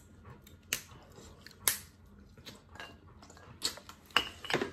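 Eating at a seafood table: a few sharp clicks and crackles of cooked lobster shell being picked apart by hand, with chewing. The clicks come singly about a second apart, with a small cluster near the end.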